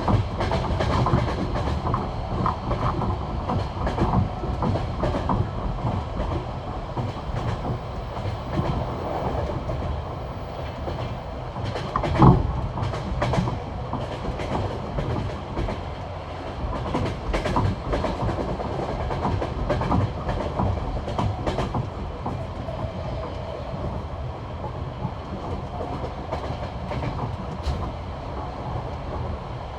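Passenger carriage wheels clacking over the joints of jointed rail at high speed, the classic clickety-clack, over a steady rumble heard from aboard the train. One louder knock stands out about twelve seconds in.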